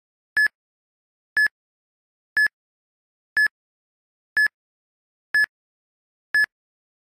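A short, high electronic beep repeated once a second, seven times, each at the same pitch, with dead silence between the beeps.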